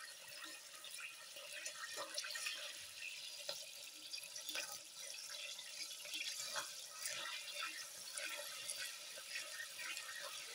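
Coconut cream boiling in a steel saucepan, sizzling with a steady hiss and many small crackles and pops as its water cooks off: the stage in rendering coconut oil before the crackling dies down and only oil is left.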